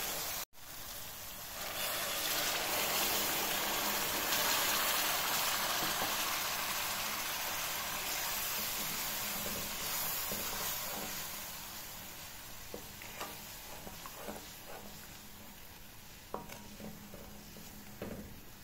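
Masala and green peas frying in an aluminium pan: a loud sizzle that fades gradually through the second half. In the last few seconds a wooden spatula stirs and knocks against the pan.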